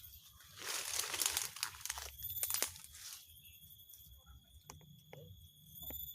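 Rustling and crunching, in two bursts in the first three seconds, then a few scattered clicks.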